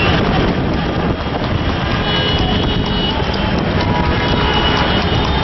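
Steady traffic and road noise from a moving vehicle among motorcycles and cars on a highway, with a low, fluttering wind rumble.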